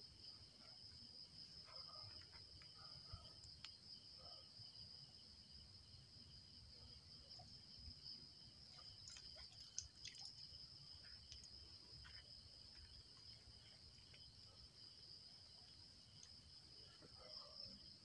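Faint, steady chorus of night insects, with a few scattered faint clicks, one a little louder about ten seconds in.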